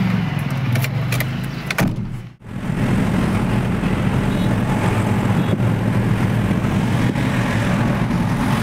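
Diesel ambulance van driving, heard from inside the cab: a steady low engine and road drone. It cuts out abruptly for a moment about two seconds in, then carries on.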